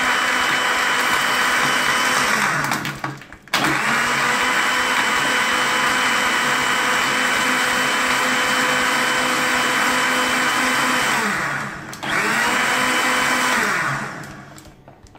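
Countertop electric blender running at full speed on milk, coffee, sugar and ice cubes, pulsed off and on. The motor winds down about three seconds in and starts again at once. It winds down again about twelve seconds in, restarts briefly, and winds down to a stop near the end.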